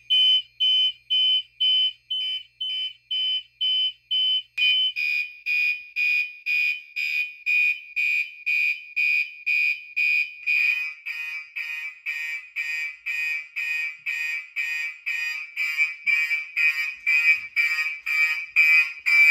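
Gentex fire alarm horns sounding in march time, rapid on-off pulses about two a second, with the system in alarm after a smoke detector was set off with test spray. About four and a half seconds in the sound grows fuller, and about ten and a half seconds in a lower-pitched horn tone joins the pulsing.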